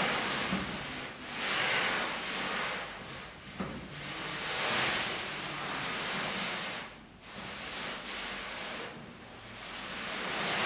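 Pleated fabric of black yarn set with small metal plates, dragged and fanned across a smooth surface: a swishing rustle that swells and fades every second or two, with a light click or two from the metal plates.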